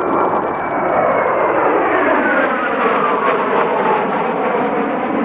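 Several Kawasaki T-4 jet trainers, each with two turbofan engines, flying past overhead in formation. Their loud, steady jet rush carries a whine that falls in pitch from about two seconds in as they go by.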